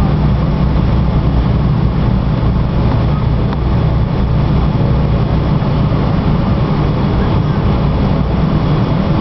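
Steady low rumble inside the cabin of a Boeing 777-300ER rolling along the runway, from its GE90 engines with the rush of the airframe and wheels over it.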